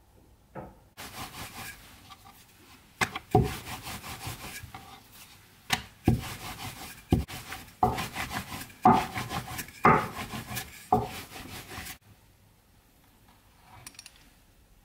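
Wooden rolling pin rolling spinach pasta dough thin on a floured wooden cutting board: rubbing strokes with a sharp knock at the start of several of them. It stops suddenly about twelve seconds in.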